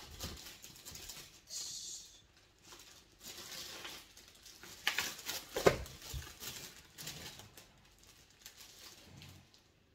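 Scattered light rustling, taps and knocks of things being handled in a small room, with a louder cluster of knocks a little past the middle.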